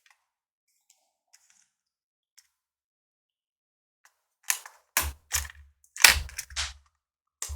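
Laptop parts being handled and fitted by hand. After a few faint ticks, a quick run of five or six sharp knocks and clatters comes about halfway through, then one more click near the end.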